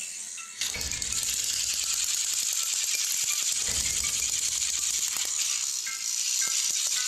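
Two battery-powered plastic toy train engines pushing head-on against each other on plastic track, their motors and gears making a dense, fast rattle that starts abruptly about half a second in and runs steadily.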